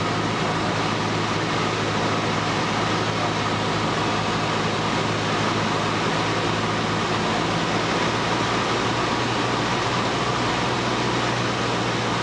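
Cessna 150's four-cylinder Continental O-200 engine and propeller running at a steady drone, heard inside the cockpit with a broad rush of air noise.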